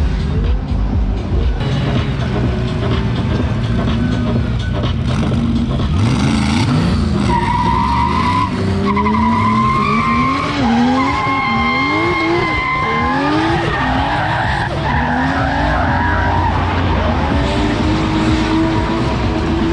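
Drift cars on track: engines revving up and down in quick repeated swells as the throttle is worked through the slide. Tyres squeal in long high notes through the middle of the stretch.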